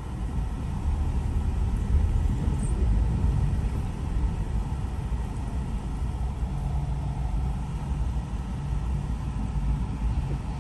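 Car driving over bumpy city streets, heard from inside the cabin: a steady low rumble of road and tyre noise with the engine underneath.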